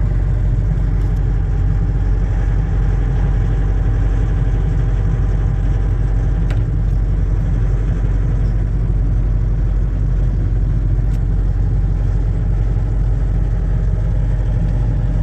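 John Deere excavator's diesel engine running steadily, with a strong low hum, heard from the operator's seat. There is a faint click about six and a half seconds in.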